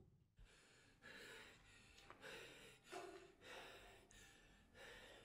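Faint, quick gasping breaths from a person, one after another.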